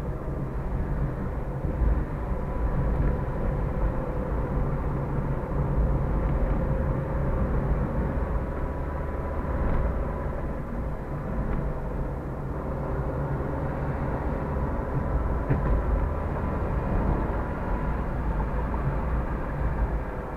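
Car driving at road speed, heard from inside the cabin: a steady low rumble of engine and tyre noise with a faint steady whine.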